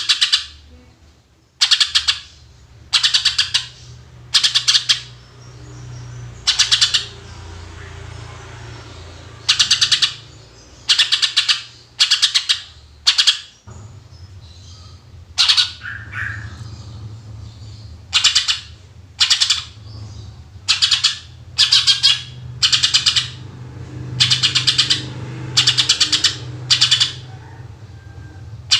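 Cucak ijo (greater green leafbird) singing in loud, short, sharp phrases, the rapid 'tembakan' shots prized by Indonesian bird keepers, repeated about once a second. A steady low hum runs underneath.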